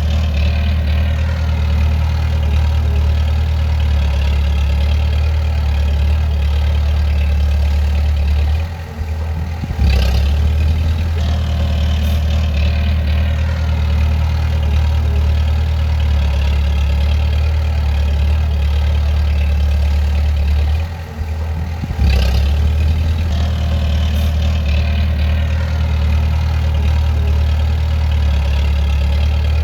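Bulldozer's heavy diesel engine running with a steady low drone. Twice it dips briefly and comes back with a sharp click.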